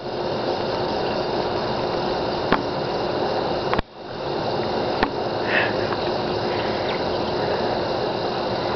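Steady outdoor hiss with a brief high squeak about five and a half seconds in, from the dogs' squeaky toy; the sound drops out briefly just before four seconds.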